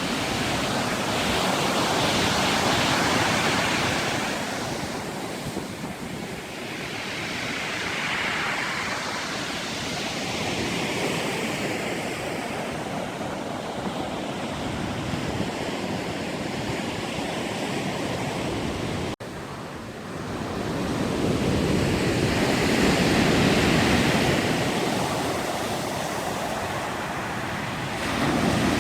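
Sea surf breaking and washing on the shore, rising and falling in slow surges a few seconds apart.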